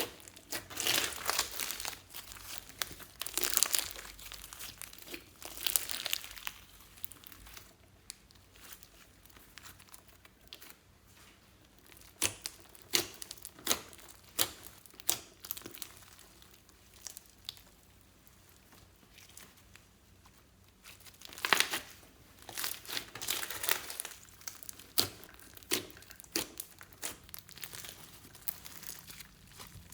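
Slime being squished and stretched by hand, making irregular crinkly crackles and small pops, with denser, louder runs near the start and again a little past the middle.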